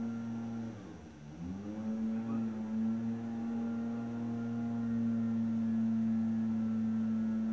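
A steady low humming tone with overtones, held on one pitch, dipping and sliding back up about a second in.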